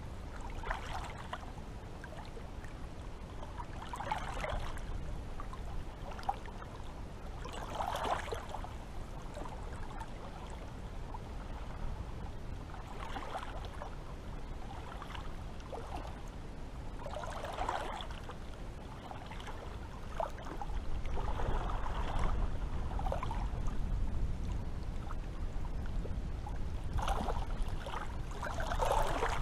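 Small waves lapping and splashing at the coast, a wash coming about every four to five seconds, over a low rumble that grows louder about two-thirds of the way through.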